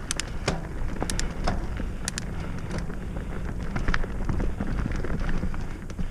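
Mountain bike rolling fast down a dirt singletrack: a steady low rumble of tyres on the trail and wind on the camera microphone, with sharp clicks and rattles from the bike over bumps, several in the first couple of seconds.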